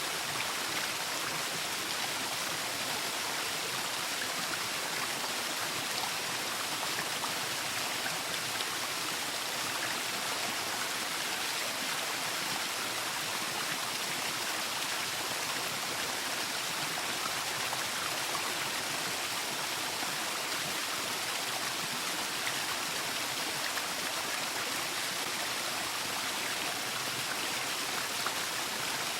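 Waterfall: steady rushing and splashing of falling water, an even hiss that doesn't change.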